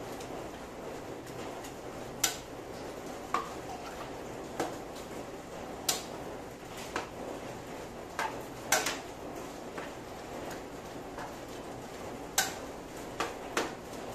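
Metal spatula striking and scraping a large steel wok while rice noodles and cabbage are stir-fried: about a dozen sharp, irregular clanks, roughly one a second. A steady hiss sits underneath.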